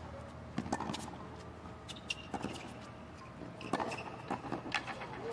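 Tennis rally on a hard court: rackets striking the ball, heard as sharp knocks spaced about a second or so apart, with smaller ticks of bounces and footsteps between them.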